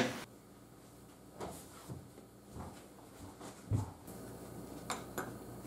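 A few faint, light knocks of plastic cups and lids handled on a kitchen counter, with a duller thump nearly 4 seconds in and two short clicks about 5 seconds in as snap-on plastic lids are set on the pudding cups.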